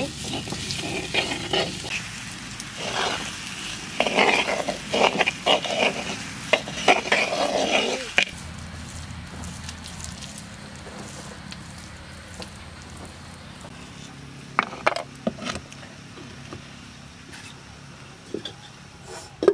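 Small potatoes frying in a clay pot, stirred with a spoon: the spoon scrapes and knocks against the pot over a sizzle for about the first eight seconds, then it goes quieter with only a few knocks.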